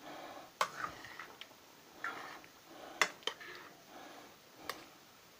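A spoon stirring a chunky chicken and vegetable stew in a stainless steel pot: soft wet sloshing, with four sharp clinks of the spoon against the pot.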